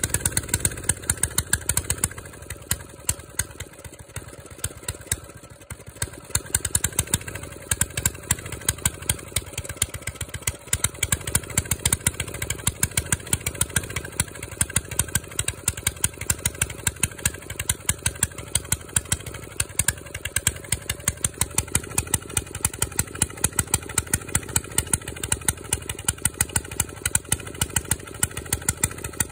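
Diesel engine idling after a cold start, running on through its warm-up with an even, sharp knocking clatter. The engine dips slightly about five seconds in, then steadies.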